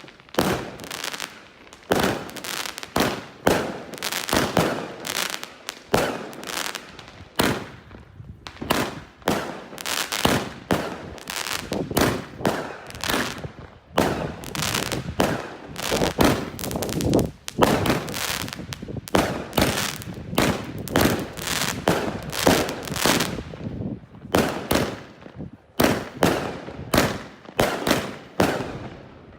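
Consumer fireworks from an Original Pro Box 3 assortment going off: a fast, irregular series of sharp bangs, often one or two a second, with barely a pause between them.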